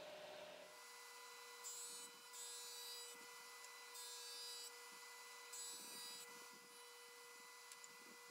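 Faint electric power tool running with a steady whine, cutting or sanding wood in four or five short rasping bursts.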